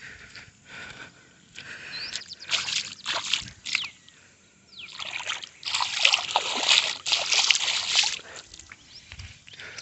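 Bare feet squelching and sloshing through wet, rain-soaked mud, in uneven wet bursts. There is a shorter cluster of steps about two and a half seconds in and a louder, longer stretch from about halfway to near the end.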